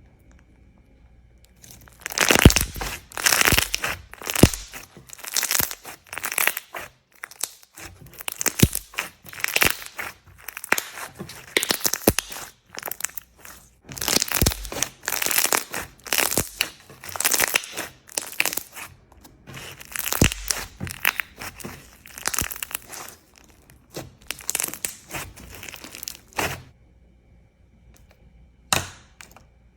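Slime being squeezed and pressed by hand, crackling and crunching in repeated bursts; it begins about two seconds in and stops a few seconds before the end, leaving a few faint clicks.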